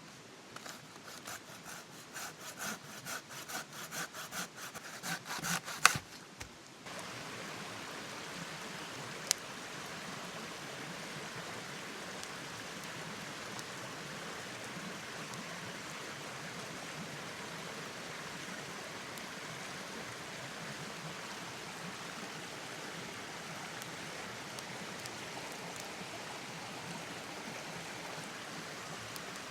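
A hand saw cutting through wood in quick back-and-forth strokes that grow louder, ending in a sharp crack about six seconds in. After that comes the steady hiss of rain.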